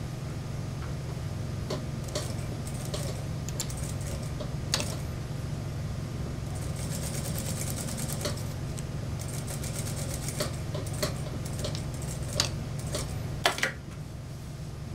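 Industrial lockstitch sewing machine stitching through a mink coat's fur and lining in short runs, its needle ticking rapidly, with the longest burst of stitching in the middle. A few loud clicks near the end, then the stitching stops, over a steady low hum.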